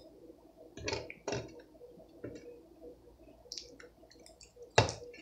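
Close-up wet chewing and mouth sounds of someone eating apple pie off a metal spoon, broken by a few short clicks and knocks. The loudest knock comes near the end.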